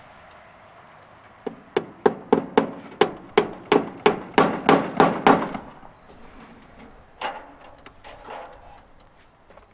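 Hand hammer nailing into wood: a run of about a dozen sharp blows, roughly three a second, then two lighter blows a few seconds later.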